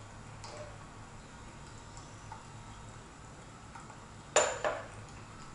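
Porcelain teaware set down on the tea tray: two quick clinks close together a little over four seconds in, the first louder, each with a short ring.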